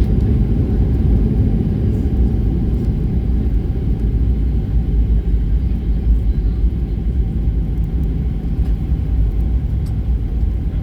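Steady low rumble inside the cabin of a Boeing 737-800 around landing, the engines and airframe heard through the cabin walls.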